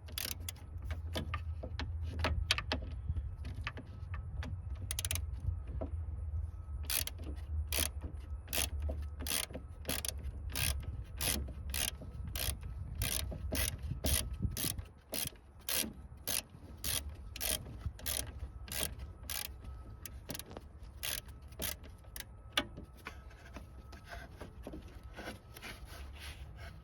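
Hand ratchet wrench clicking in a steady rhythm, about two clicks a second, while 10mm bolts are worked loose. A low rumble sits under the clicks for the first half.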